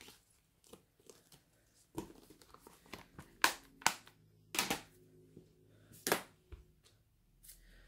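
Crinkling of a clear plastic stamp-set sleeve and a handful of sharp clicks and clacks as a rubber stamp is pulled from it and a clear acrylic stamp block is handled and set down on a craft mat.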